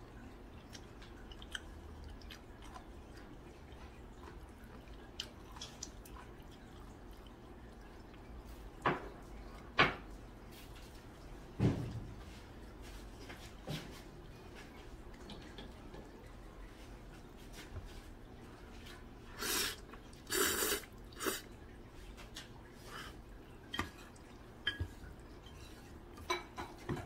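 Eating from a stainless steel pot: chopsticks and a metal spoon clink and scrape against the pot, with chewing and slurping of noodles. A few louder knocks come around ten to twelve seconds in, and a short cluster of noisy slurps comes about twenty seconds in.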